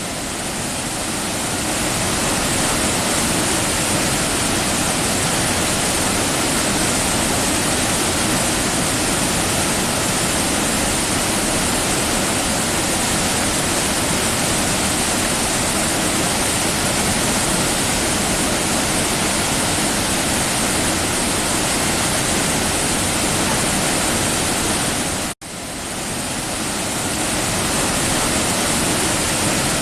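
Waterfall: a loud, steady rush of falling water. It cuts out for an instant late on and swells back over about a second.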